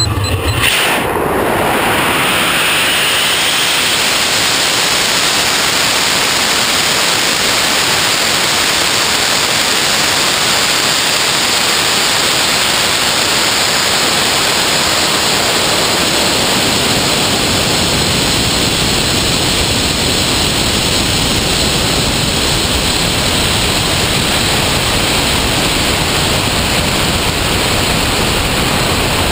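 A high-power amateur rocket with an ammonium perchlorate composite motor ignites and flies, heard through its on-board camera as a loud, even rush of noise. The noise comes up within the first second and holds steady, with a brief rising sweep in the first few seconds.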